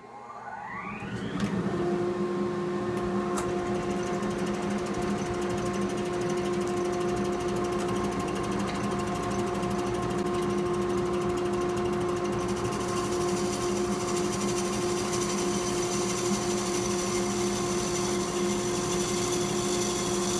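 A wood lathe spins up with a rising whine over about a second and a half, then runs with a steady hum as it turns a mahogany blank inside a clear dust-collection shroud. About twelve seconds in, a steady hiss joins as a gouge starts cutting the spinning blank.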